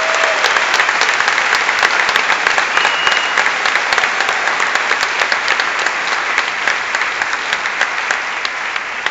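A large audience applauding, dense clapping that eases off near the end.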